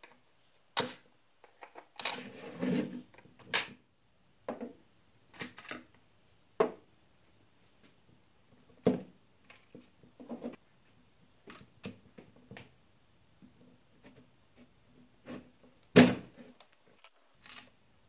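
Scattered clicks and knocks of plastic and metal parts being handled as a Husqvarna 440 chainsaw's top cover is taken off and its spark plug removed. The loudest knock comes near the end.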